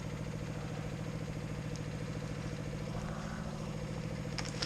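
A logging yarder's engine running steadily, with a few sharp clicks near the end.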